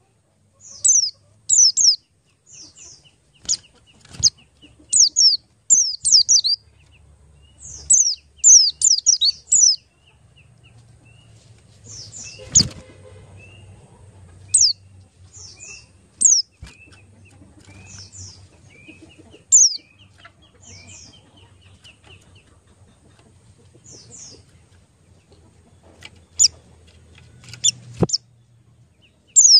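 Birds chirping: clusters of short, high chirps that sweep downward in pitch, thick in the first third and sparser later, over softer, lower rapid twittering. A low steady hum runs underneath, with a single knock about halfway through.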